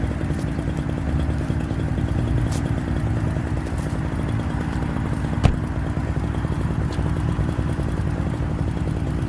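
An engine running steadily with a low, even rumble, and a single sharp click about halfway through.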